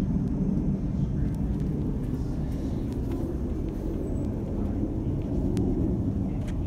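2015 Ducati 1299 Panigale's 1285 cc Superquadro L-twin engine idling steadily.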